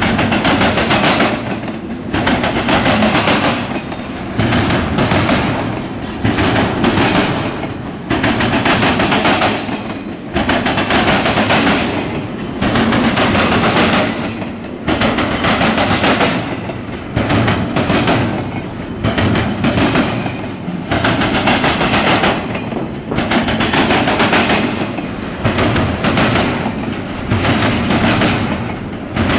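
Norfolk Southern double-stack intermodal freight train passing close by, its well cars' wheels clattering on the rails in loud groups about every two seconds as each set of trucks goes by.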